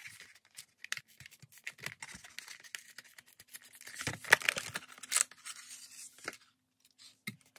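Clear plastic blister of a Hot Wheels blister card being pried and peeled away from the cardboard, with irregular crackling and tearing, loudest about four to five seconds in.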